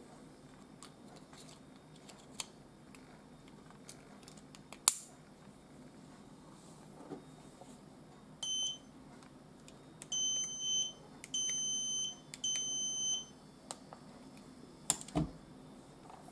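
Handheld radio key tester beeping as it picks up the signal from a Mercedes-Benz smart key with a fresh CR2032 battery, showing that the key transmits: one short beep, then three longer high beeps about a second apart. Before them a sharp plastic snap as the key's back cover clicks shut, and near the end a couple of knocks on the work mat.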